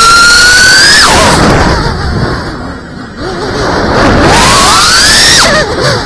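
FPV quadcopter's brushless motors whining, recorded on the camera mounted on the drone. The pitch climbs steadily, then drops away about a second in as the throttle comes off. It stays lower and quieter for a couple of seconds, then rises and falls again with quick throttle changes.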